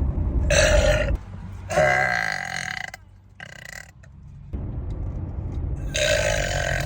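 A young woman belching loudly three times: a short burp about half a second in, a longer one near two seconds that drops in pitch, and another near the end, with a faint short one in between. A low rumble sits under the first second.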